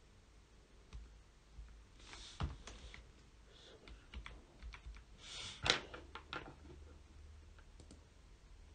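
Computer keyboard keys pressed in irregular taps and short runs, the loudest stroke a little past halfway.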